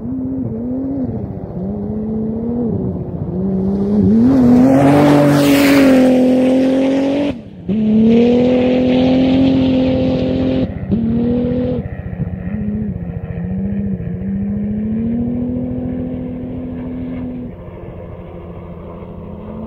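Jimco off-road race buggy at full throttle, getting louder as it approaches, passing loudly about five seconds in with a rush of gravel and tyre noise. It pulls away with quick gear changes, heard as brief cuts in the engine note, and fades into the distance.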